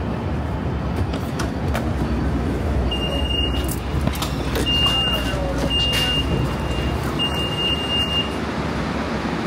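Door warning beeps on a Siemens S700 light-rail car: a high, steady beep sounds four times in about five seconds over the low hum of the car and street, with a few light knocks.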